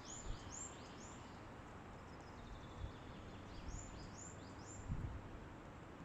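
A songbird singing: two phrases of three quick, high, arching notes, one at the start and one a little past the middle, with fainter notes between them. Underneath is a steady rush of wind in the forest, with a few soft low thumps of wind on the microphone.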